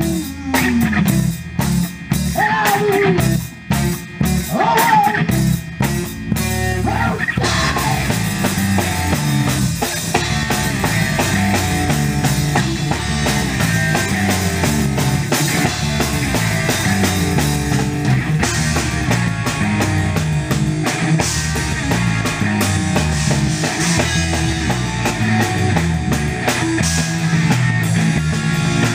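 Live rock band playing an instrumental passage on drum kit and guitar. For the first several seconds it is separate stop-start hits with sliding notes between them; from about seven seconds in, the full band plays continuously.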